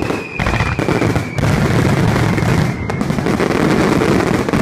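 Fireworks finale heard from very close: a dense, continuous barrage of bursting shells and crackling sparks with no pauses between shots.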